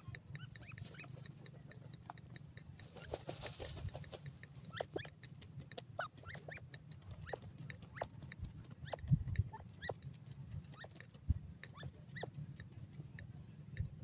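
Young grey francolins giving many short, high peeping chirps, scattered throughout, over a steady low hum, with a dull thump about nine seconds in.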